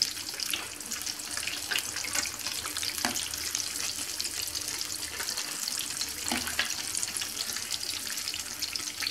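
Apple beignets deep-frying in hot oil in a pan: a steady hiss with scattered crackles. A few light clicks come as a slotted spoon and fork turn the pieces.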